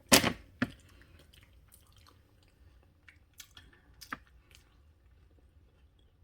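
Crunchy protein granola cereal being chewed: two sharp crunches within the first second, then faint scattered crunches.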